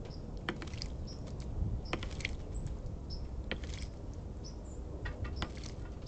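An American robin bathing in a bird bath: sharp clicks and small splashes come several times. Short, high bird chirps repeat about once a second over a low, steady rumble.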